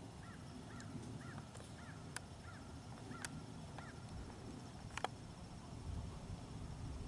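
A distant bird calling a quick run of about eight short notes over a low wind rumble, with a few sharp clicks, the loudest about five seconds in.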